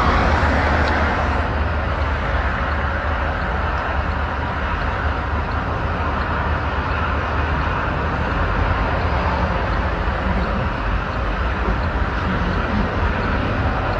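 Steady vehicle noise: a low engine rumble under an even road hiss.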